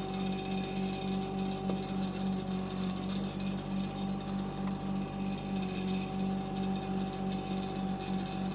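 Kubota diesel engine of a Shanding 1-ton mini excavator running steadily under working load, its low hum beating in an even pulse several times a second.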